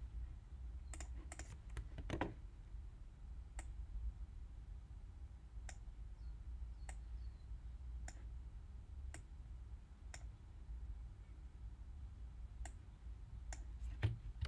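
Sharp single clicks of computer input while drawing in Photoshop: a quick cluster in the first two seconds, then about one click a second, over a low steady hum.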